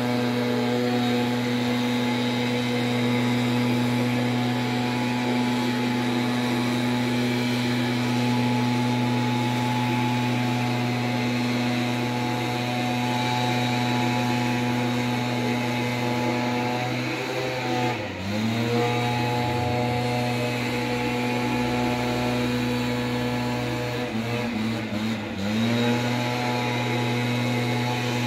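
Backpack-mounted two-stroke brushcutter running at high revs as it cuts dry weeds. The engine note holds steady, then drops in pitch briefly and climbs back twice: once about two-thirds of the way through, and again a few times near the end.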